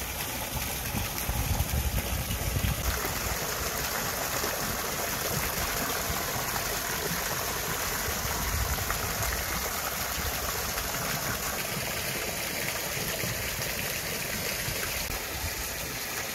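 Steady rushing, splashing water, with stronger low rumbles in the first few seconds.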